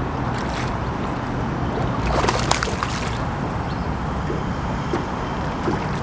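Water sloshing and splashing at the side of a bass boat as a hooked largemouth bass thrashes close in and is landed by hand.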